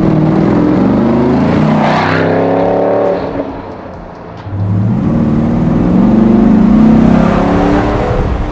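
The Defender's swapped-in LT1 V8 accelerating hard at full throttle: revs climb for about three seconds, drop away and go quieter for a second or so at a gear change, then climb again.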